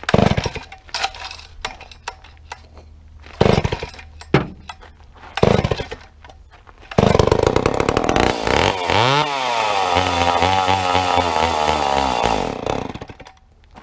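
Old Homelite two-stroke chainsaw being pull-started: three short pulls that pop without catching, then it catches about seven seconds in and runs unevenly, its pitch dipping and rising, before it dies near the end. The men suspect the fuel line, since the carburettor has already been rebuilt.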